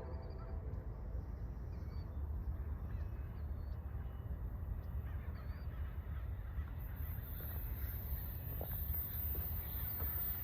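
Steady low rumble of an Amtrak Capitol Corridor passenger train's cars rolling past on the rails, with faint bird chirps.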